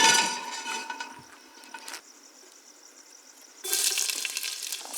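Food sizzling in hot oil in a cooking pot: a loud burst of sizzling at the start that dies down over about two seconds, then the sizzling flares up loudly again near the end.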